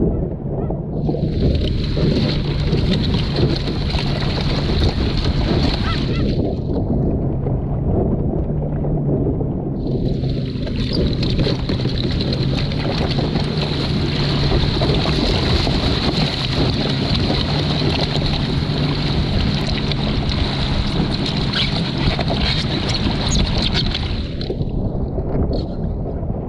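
A dog barking in the background, under the steady rush of wind and water around a small sailing dinghy.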